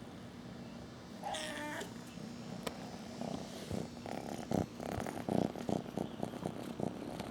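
A kitten meows once, briefly, about a second in, then purrs in a rapid, rough pulsing rhythm.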